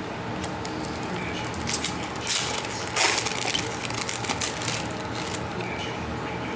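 Trading cards and their packaging being handled, with irregular rustling and crinkling that is loudest in two bursts about two and three seconds in.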